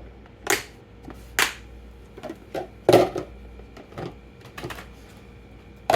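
A set of bowls being nested back together: a few sharp clacks, the loudest about three seconds in, with lighter knocks between as they settle into one another.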